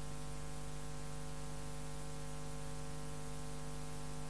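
Steady electrical hum, a stack of even tones over a background hiss, with no change or event.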